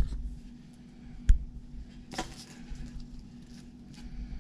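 Hands handling a paper template on a wooden board: one sharp tap about a second and a half in, then a brief rustle and a few light ticks, over a faint steady hum.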